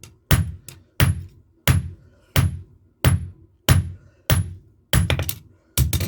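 Blacksmith's hand hammer striking leaf-spring steel on an anvil at a steady pace, about one blow every 0.7 seconds, each with a short high ring. Near the end come a few quicker, lighter taps between the blows.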